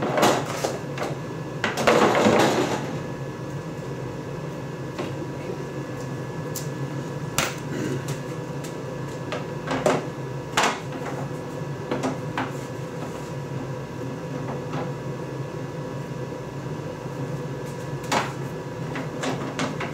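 Scattered clicks and knocks of a plastic door skin panel being handled and pressed into place on a side-by-side's door, with a louder scraping rustle about two seconds in, over a steady background hum.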